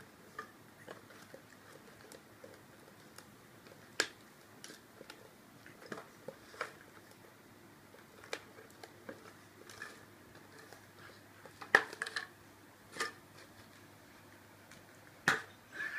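Scattered light clicks and knocks of a Pringles can as a pug puppy noses and pushes it about with its head inside the tube. The knocks come at irregular moments, the sharpest few near the end.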